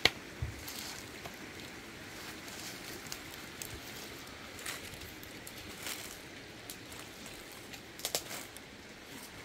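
Scattered crackles and rustles of dry leaves and twigs being handled and stepped on, over a steady faint hiss, with a sharp click right at the start and a quick pair of crackles near the end.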